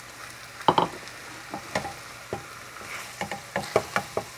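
A utensil stirring ground beef and vegetables in a pot on full heat: about ten irregular clacks and scrapes against the pot over a faint, steady sizzle.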